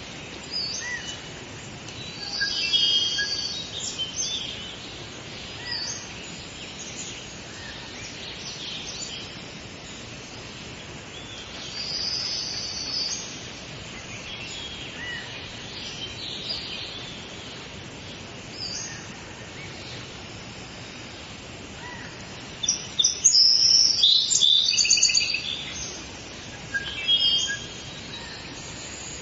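Tropical rainforest ambience: many birds calling and chirping over a steady background hiss of insects and forest noise, with a loud flurry of rapid calls about three quarters of the way through.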